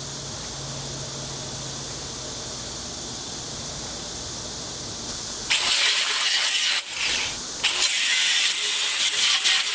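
A steady low hum for the first half, then an abrasive cutoff wheel on a cordless grinder cuts into the steel compressor tank with a loud, hissing grind, briefly easing off about a second and a half after it starts before cutting on.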